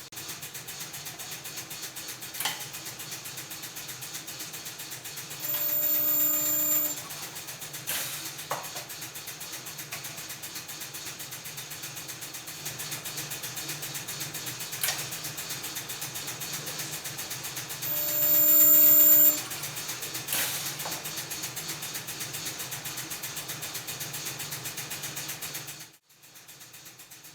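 Inverter resistance spot welder making two welds, each a loud buzz with a high whine lasting about a second and a half, with sharp clicks between them as the weld gun closes and opens, over a steady background hum.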